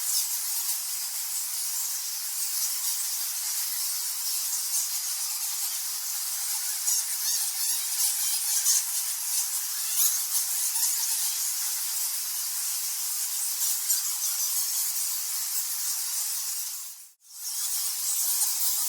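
Colony of bats squeaking and chittering together, a dense, high-pitched, steady mass of many overlapping calls. The sound fades out briefly near the end and comes straight back.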